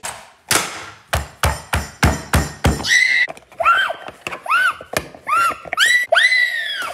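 A quick run of about seven sharp thunks, roughly three a second, then a series of short high squealing cries, each rising and falling in pitch, the last one held longest.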